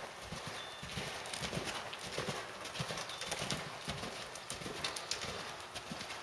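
Canadian Warmblood horse cantering on dirt arena footing: repeated hoofbeats in a steady rhythm.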